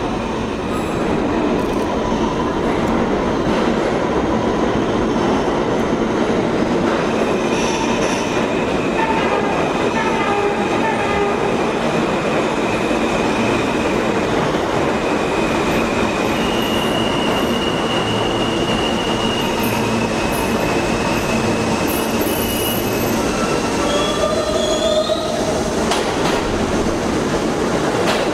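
Retired New York City subway cars rumbling into an underground station on curved track. Their wheels squeal in several long, high tones, some gliding upward, before the cars run past the platform with a steady clatter.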